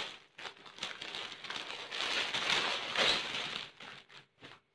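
Clear plastic packet crinkling and rustling as a folded saree is pulled out of it, loudest in the middle and thinning to a few short rustles near the end.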